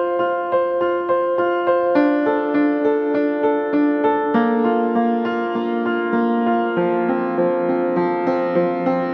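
Background piano music: a slow repeating pattern of notes, about three a second, over changing chords.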